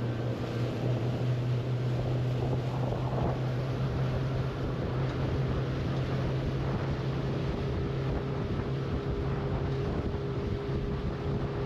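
Outboard motor of a fishing skiff running steadily under way, with wind noise on the microphone.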